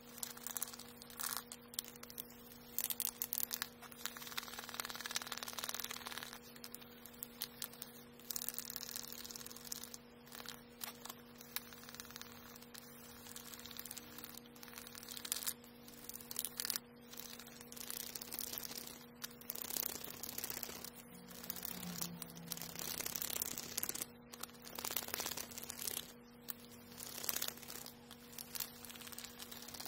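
Sandpaper rubbed by hand over a carved red oak (akagashi) shift knob: irregular, scratchy strokes of uneven length, over a steady low hum.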